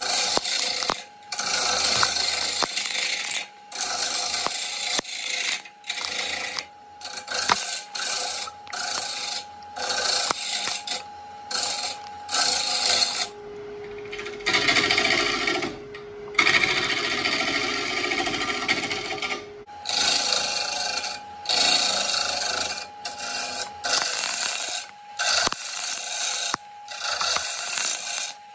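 Turning gouge cutting a spinning oak burl blank on a wood lathe: repeated scraping passes a second or two long with short breaks between them. A steady lathe hum runs underneath, dropping to a lower pitch for about six seconds midway.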